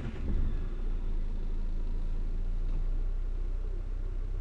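A 1962 Morris Minor 1000's four-cylinder A-series engine, heard from inside the cabin, catches on a warm restart, with a click right at the start and a brief louder burst. It then settles into a steady idle.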